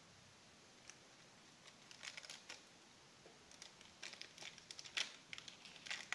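Thin plastic bag crinkling and rustling as it is handled, in short runs of crackly rustles starting about two seconds in and loudest near the end.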